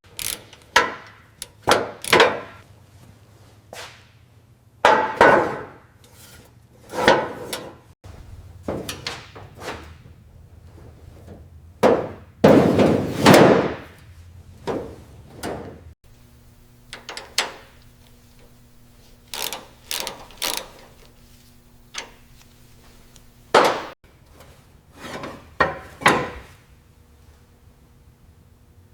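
Irregular knocks and hammer-like blows from workshop restoration work, a couple of seconds apart, with one longer rasping noise about halfway through.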